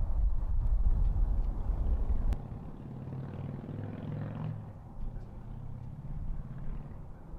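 Wind buffeting the microphone with a heavy, gusty low rumble that drops away about two and a half seconds in, leaving a quieter outdoor background with a faint low steady hum. A single light click comes just before the drop.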